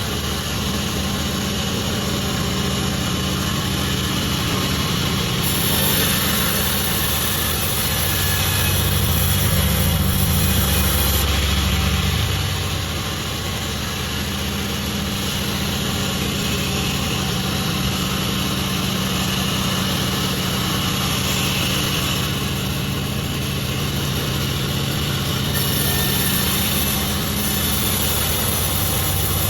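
Pandan36 sawmill machinery running steadily, a continuous engine-like drone with a low hum beneath it.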